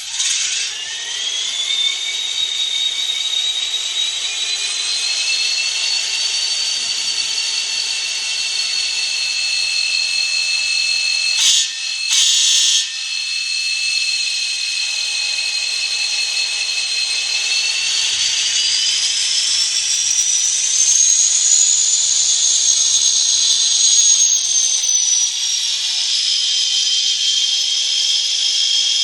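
Sound-equipped N scale EMD SD40T-2 model playing diesel locomotive engine sounds through its tiny onboard speaker: a high whine rises about a second in and settles into a steady running sound, with two short hissing bursts a little before the middle. Past the middle the whine climbs higher and then drops back near the end.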